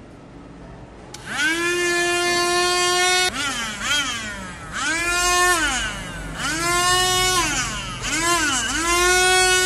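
Small DC motor of a homemade mini grinder whining, starting about a second in. It spins up to a steady high pitch, then slows and spins up again about five times.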